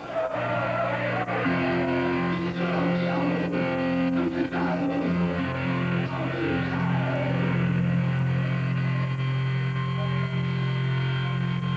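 Death metal band playing live through a club PA: distorted electric guitars hold low, sustained chords that thicken about a second and a half in and shift again around the middle.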